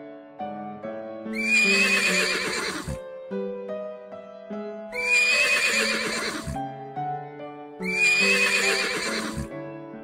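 A horse whinnying three times, each call about a second and a half long with a wavering pitch, over soft background music of sustained notes.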